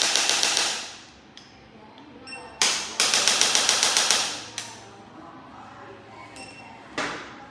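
Handheld percussive chiropractic instrument firing rapid mechanical clicks, about ten a second. One burst stops within the first second, a second burst of about a second and a half comes a few seconds in, and a single sharp knock sounds near the end.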